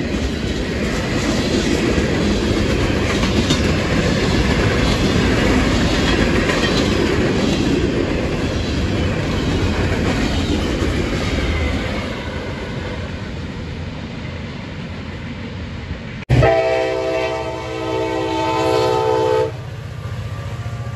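Freight cars rolling past with a steady rumble and wheel clatter that eases off about two-thirds of the way through. Then, after an abrupt cut, a CSX diesel locomotive's multi-chime horn sounds one long blast of about three seconds, cutting off suddenly to leave the locomotive's low rumble.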